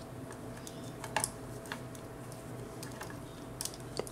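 A few light clicks and taps of small plastic action-figure parts being handled and fitted together, over a faint steady hum.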